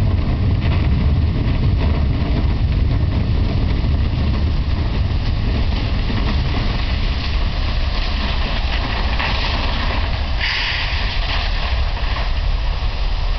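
Steady, deep roar of a drilling rig blowout, fluid and gas escaping under pressure, with a brighter hissing stretch about ten seconds in.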